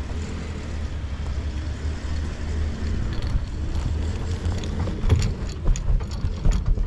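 A vehicle engine idles with a steady low rumble. From about three seconds in, irregular light metallic clinks and rattles sound over it.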